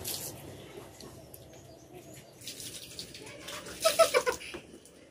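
Faint clicks and rustles of two people eating rice with their fingers from steel plates, with a short, louder sound about four seconds in.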